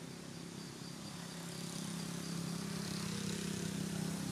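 Steady low hum of a motor vehicle's engine, growing louder about a second and a half in.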